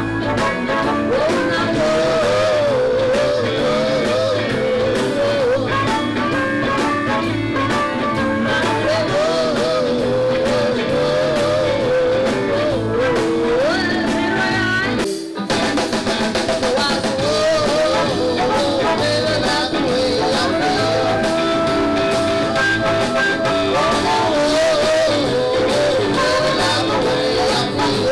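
A live blues band playing: a woman singing over electric guitar, bass and drums. About halfway through, the music breaks off for an instant and another blues number carries on.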